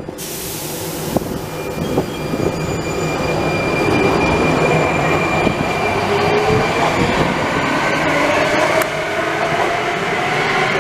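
Metro train pulling out of the station: a short hiss of air in the first second, then the traction motors whining, rising in pitch as the train accelerates away, over the rumble of wheels on the rails.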